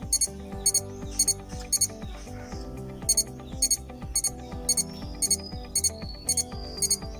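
Background music with a steady beat: a high, sharp double tick repeating about twice a second over sustained chords.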